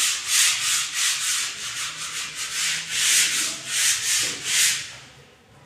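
Hand sanding of a plastered false ceiling: sandpaper rubbed back and forth over the plaster in quick scratchy strokes, about two to three a second, stopping about five seconds in.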